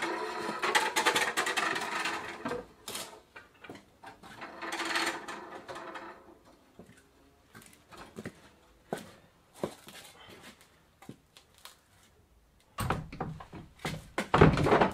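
A bicycle is wheeled out over a concrete floor, rattling, followed by scattered knocks of footsteps in wooden clogs. Near the end, large wooden barn doors are swung shut with a cluster of loud knocks and thuds.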